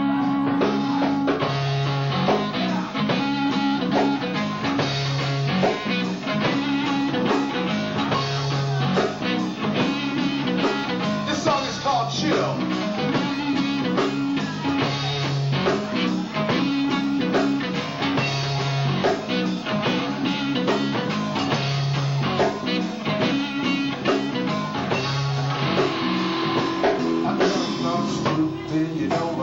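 Live funk band playing a groove on electric guitars, electric bass and drum kit, with a bass riff repeating about every two seconds under the guitar and drums.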